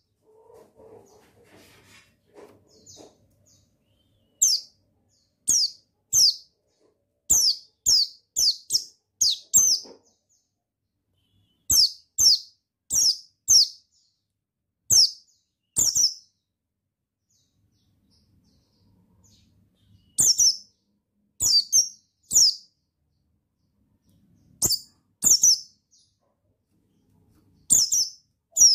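White-eye (pleci) giving short, sharp high call notes, each falling in pitch, in quick clusters of two to five with pauses of a second or more between clusters.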